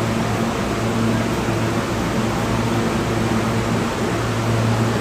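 Subway station ambience: a steady low hum under an even rushing hiss, with no distinct events.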